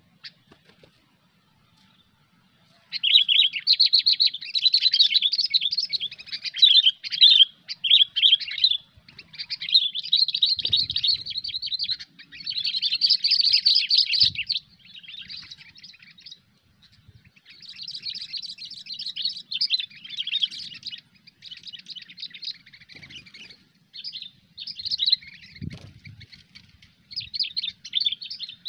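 Sooty-headed bulbul (kutilang) singing a fast, dense chattering song. It starts about three seconds in and goes on in bursts separated by short pauses.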